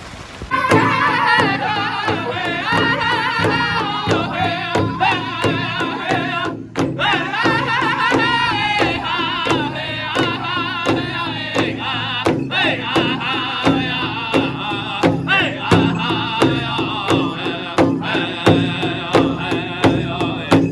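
Pow wow drum group: several singers' high, wavering voices over a steady beat on a big drum, starting suddenly about half a second in, with a brief break a third of the way through.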